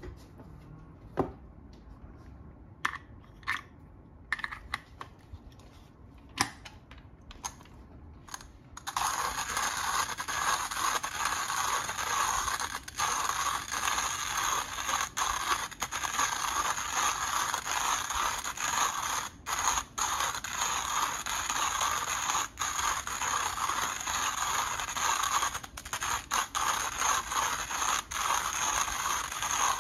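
A few scattered clicks and clinks, then from about nine seconds in a 1Zpresso JX-Pro hand coffee grinder being cranked, its conical burrs crunching whole beans in a dense, steady grinding noise with a few brief breaks.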